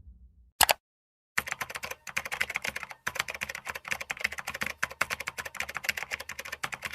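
Fast typing on a computer keyboard: a dense, rapid run of key clicks starting about a second and a half in, with a couple of brief pauses. A single short, sharp sound comes about half a second in, before the typing.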